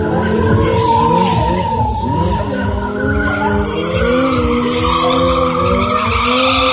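Sport motorcycle engines revving hard during stunt riding, their pitch rising and falling over and over, with tyres skidding on the asphalt.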